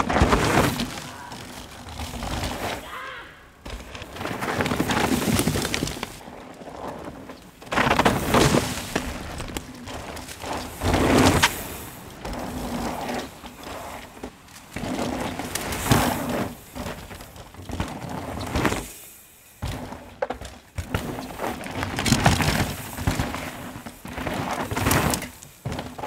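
Mountain bike ridden hard down a dirt forest trail: tyres tearing and skidding through loose dirt in the corners, with sharp knocks and rattles from the bike over roots and bumps. It comes in a string of loud surges several seconds apart as the bike passes.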